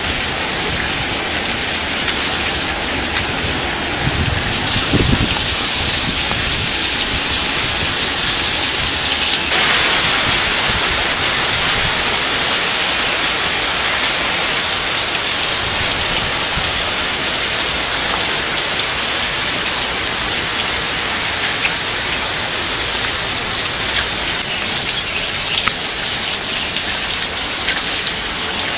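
Heavy rain and hail of a hailstorm pelting down as a steady, dense hiss that swells about five and ten seconds in, with scattered sharp ticks of individual strikes toward the end. A low rumble, like distant thunder, comes about four to five seconds in.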